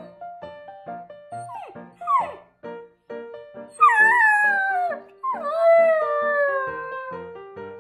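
Samoyed puppy howling: two short calls sliding down in pitch about two seconds in, then two longer howls that start high and slide down, the last held for about two seconds. Light plucked background music plays throughout.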